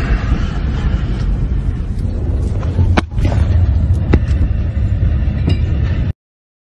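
Loud, low rumble of a car cabin picked up on a phone's microphone, with three sharp knocks and clicks, cutting off suddenly about six seconds in.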